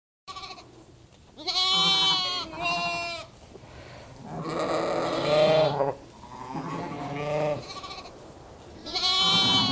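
Sheep bleating, ewes and lambs: about five quavering calls one after another, some high-pitched and some lower.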